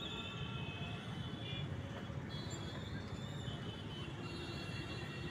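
Steady rumble of road traffic, with faint high whining tones running over it.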